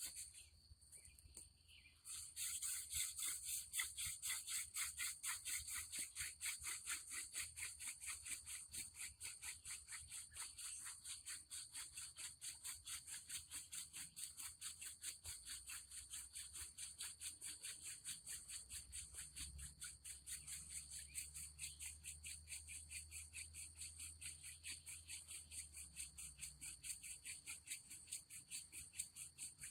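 Elderberry hand-drill spindle spun back and forth between the palms on a wooden hearth board without a notch: a fast, even, rhythmic scratching of wood on wood. It starts abruptly about two seconds in and keeps up steadily, easing slightly in loudness. Faint steady insect calls sound underneath.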